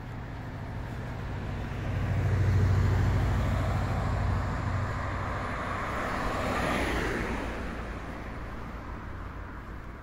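Cars passing on the road alongside. A low engine rumble swells about two to four seconds in, then tyre noise rises and fades as a car goes by about seven seconds in.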